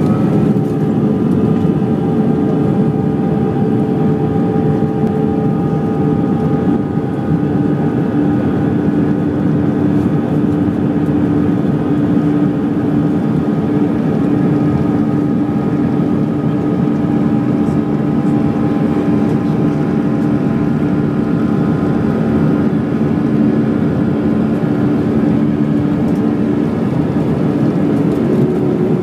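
Airbus A320 jet engines running steadily: a loud, even roar with several steady humming tones in it.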